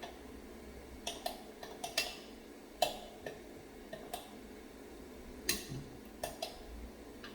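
A kitchen utensil knocking and clinking against a pot or bowl: about a dozen light, irregular knocks.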